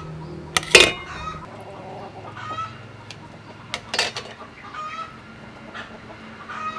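Chickens clucking in short calls scattered through, the loudest about a second in and another about four seconds in.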